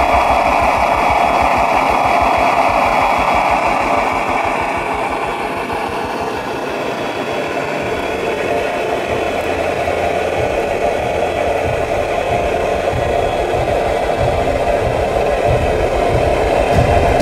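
The high-pressure water pump of a scale RC airport fire truck running, its roof monitor jetting water with a steady hiss. Underneath is a fast, rhythmic low throb from the pump that changes about halfway through.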